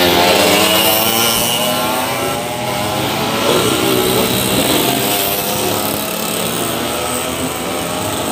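Several 116cc underbone racing motorcycle engines revving hard as the bikes pass close by, one after another, through a corner, their pitch rising and falling as each one goes past.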